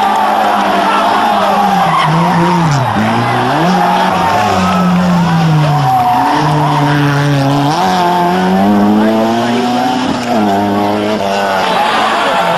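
Opel Corsa A GSi engine running hard under acceleration, its pitch climbing and then dropping sharply about three times, as at gear changes.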